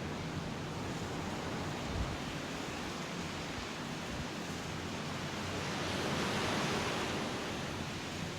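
Small surf washing onto a sandy beach, a steady hiss that swells as a wave runs in about two-thirds of the way through and then eases off.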